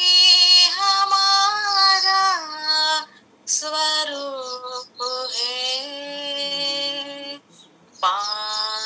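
A woman singing a Hindi devotional song alone with no instruments, in long held notes broken by short pauses for breath, heard over a video-call connection.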